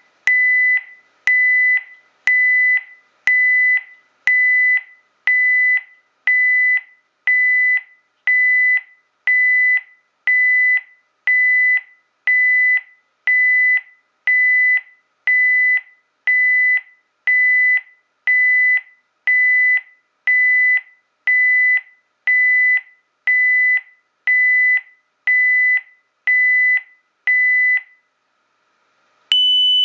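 Honeywell Lynx Touch L7000 alarm panel's built-in sounder beeping in an even pulsed pattern, a bit faster than one beep a second, each beep fading away. The beeping stops about 28 seconds in, and after a brief pause a continuous higher-pitched tone starts: the high-pitch system tone the panel makes after the burglar alarm sound is turned off.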